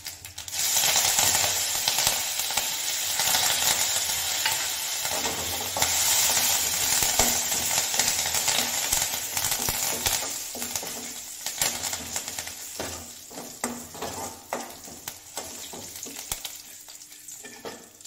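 Curry leaves dropped into hot mustard oil for a dal tadka: a sizzle that starts suddenly about half a second in, holds strong for about ten seconds and then dies down. In the second half a metal spoon scrapes and clicks against the kadai as the tempering is stirred.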